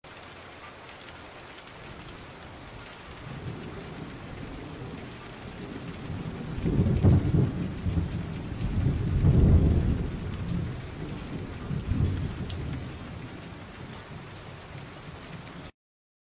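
Steady rain hiss with rolling thunder that builds about halfway through, with two loud rumbles close together and a smaller one after. The sound cuts off abruptly shortly before the end.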